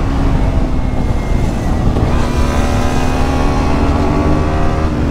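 KTM Duke 125's single-cylinder four-stroke engine running through a LeoVince aftermarket exhaust with the dB killer removed, under way on the road, its note rising steadily as the bike accelerates. Wind rumble on the microphone lies underneath.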